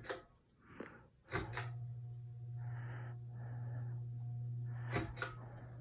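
Hampton Bay Gazebo II Plus ceiling fan running on medium speed: a steady low motor hum with a faint higher whine. It starts about a second and a half in, just after a couple of clicks. Soft rushes of air come and go, and two more clicks sound near the end.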